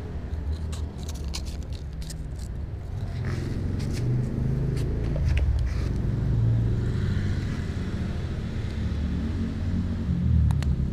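Cats rubbing against, bumping and licking a camera right at the microphone: a low rumble with scattered sharp clicks and scrapes, a cluster of them near the end.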